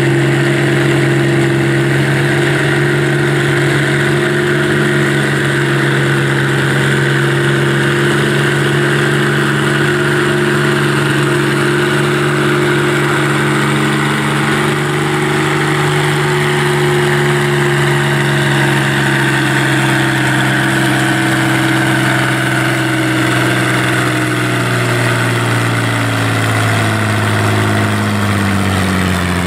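Farmall 560 tractor engine pulling a weight-transfer sled under full load at steady revs. The engine pitch drops over the last few seconds as the pull ends and the tractor comes to a stop.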